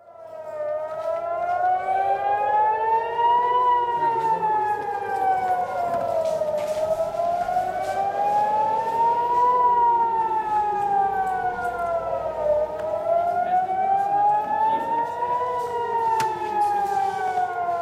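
Civil-defence air-raid siren sounding a rising-and-falling wail, each rise and fall taking about six seconds: the alert for incoming rockets. A second, lower wail runs slightly out of step with it.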